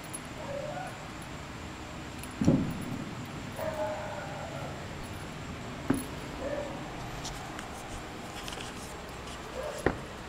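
Basset hound puppy giving about four short whimpers while it plays, the longest about four seconds in. Three sharp thumps, the loudest sounds, break in at about two and a half seconds, six seconds and near the end.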